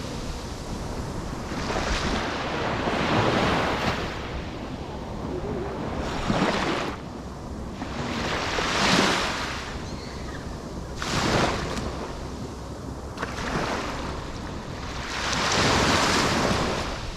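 Ocean waves breaking on the shore, the surf swelling into a hiss every two to three seconds over a steady wash, with some wind buffeting the microphone.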